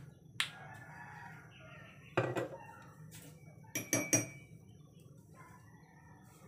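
A rooster crowing in the background, a pitched call starting about half a second in and lasting over a second. Sharp knocks and ringing metallic clinks of kitchenware follow, about two and four seconds in.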